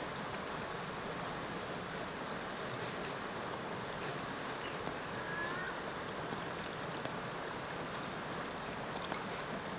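Steady outdoor ambience: an even rushing hiss with faint high chirps and ticks scattered through it, one short chirp about halfway.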